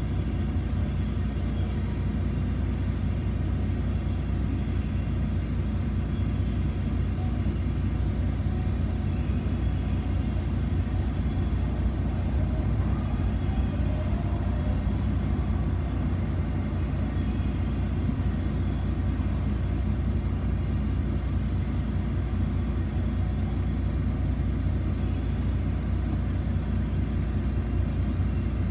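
Steady low rumble of a city bus's engine, heard from inside the bus.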